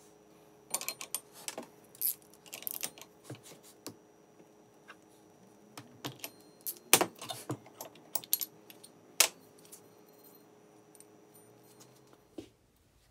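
Irregular sharp metallic clicks and clinks as parts of a Vittorazi Atom80 reduction gearbox are handled in a bench vise and a torque wrench is worked on its bolts. The clicks come in two clusters, the loudest about seven seconds in.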